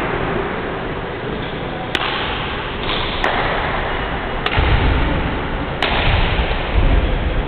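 Badminton rally: four sharp cracks of racket strings striking a shuttlecock, about one and a quarter seconds apart, over a steady hiss. Low thuds join in the second half.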